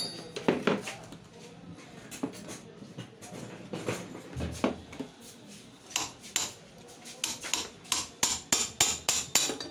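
Hammer blows on a metal rod set against the cast end plate of a 1 HP monoblock pump motor, knocking it loose round its rim. The strikes are scattered at first, then come steadily at about two to three a second in the second half.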